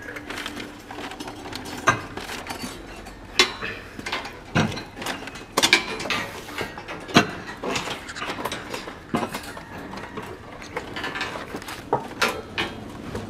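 Irregular metallic clicks and clinks of steel rebar and tie wire being handled as stirrups are tied onto a column reinforcement cage.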